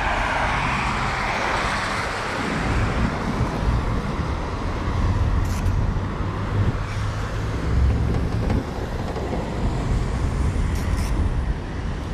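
Traffic on a wet road: car tyres hissing on the wet asphalt as a car passes in the first couple of seconds, over a steady low rumble of road traffic.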